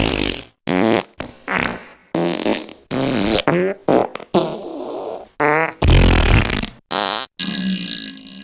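A rapid series of about a dozen separate fart sounds spliced one after another with abrupt cuts between them. Some are pitched and wavering, others raspy and noisy. The last one, near the end, is longer.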